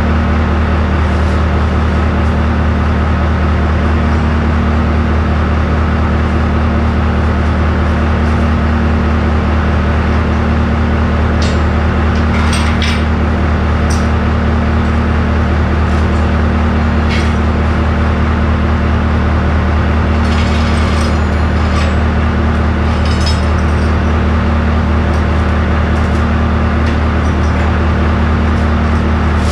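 An engine running steadily, a loud, even low hum, with a few short metallic clinks and knocks of work on the track and idlers about halfway through.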